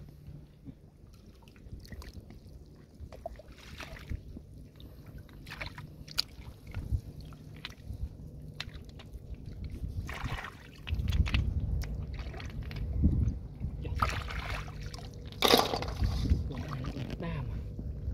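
Hands groping and splashing in shallow muddy water, with small scattered splashes and sloshes. The sloshing grows louder in the second half, with one sharp splash about three-quarters of the way through.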